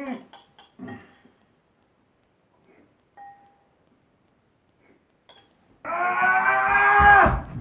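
A utensil clicking a few times against a bowl, then a quiet stretch. Near the end comes a loud, long held vocal call, steady in pitch for about a second and a half and sagging at the end.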